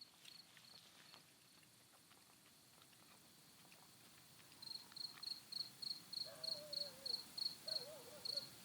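A cricket chirping in a steady rhythm of short high chirps, about three a second, starting about halfway through after a few scattered chirps. A faint wavering lower tone comes in near the end.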